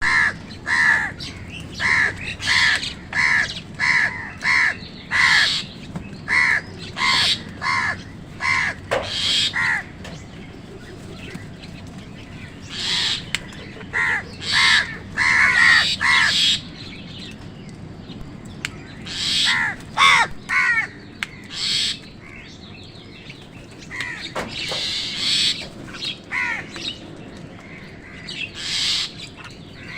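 Crows cawing: a fast run of loud, harsh caws about two a second for the first ten seconds, then more bouts of caws between short pauses.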